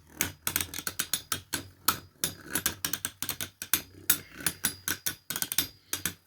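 Two 3D-printed Beyblade spinning tops colliding in a stadium, with rapid, irregular plastic clacks, several a second.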